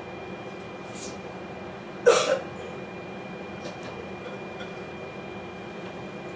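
Steady drone of a diesel railcar heard from inside the cab as the train moves slowly off from the platform, with a short, loud, sharp noise burst about two seconds in.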